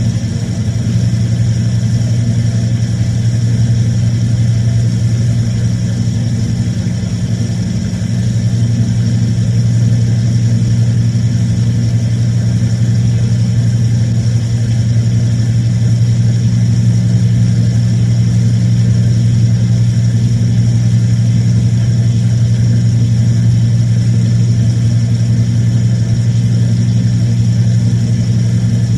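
An electrical appliance running with a loud, steady, low motor hum that keeps the same pitch, with no breaks or changes.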